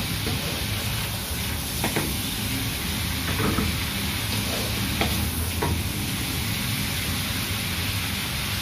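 Hot oil left from frying prawns sizzling steadily in an aluminium wok, with a few scrapes and knocks of a wooden spatula against the pan in the first six seconds.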